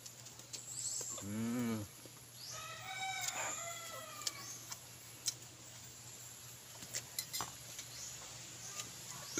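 A rooster crowing in the background, one call rising and falling about two and a half seconds in, after a brief low hum a second in that is the loudest sound. Scattered small clicks run through it.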